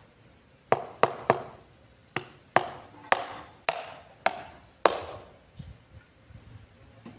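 Hammer blows on a wooden formwork box at the base of a concrete column, nine sharp ringing knocks: three in quick succession, then six more about half a second apart.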